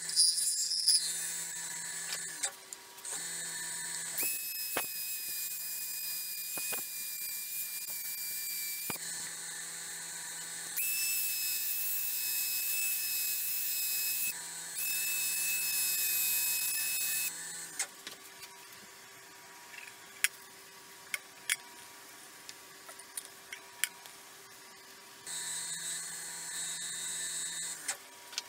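A bowl gouge cutting the inside of a maple burl and resin bowl spinning on a lathe for the first couple of seconds. Then a handheld rotary tool with a foam sanding pad whines at a steady high pitch as it sands the inside of the bowl, in three runs of a few seconds with short stops between. Later come scattered light clicks and a short noisy stretch near the end.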